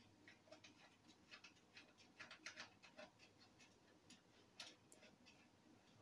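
Faint, scattered clicks and light taps as a Scanreco RC-400 handheld crane radio remote control transmitter is turned over and handled, with its serial cable attached.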